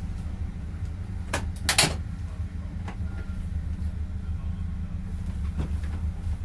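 Race car's engine idling while the car sits stationary, heard from inside the cabin. Two sharp knocks just under two seconds in, and fainter ones later.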